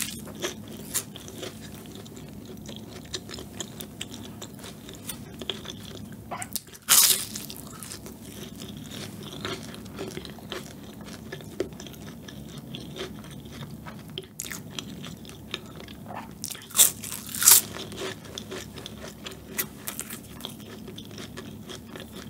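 Close bites and chewing of a flaky-pastry injeolmi tart: the thin layered crust crunches sharply about a third of the way in and twice in quick succession later on, with soft chewing and small crackles in between.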